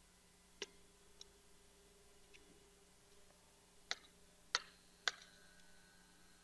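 A handful of sharp, light clicks at irregular intervals, the three loudest close together in the second half, over a faint steady hum: clicks of a stylus or mouse being used at a computer.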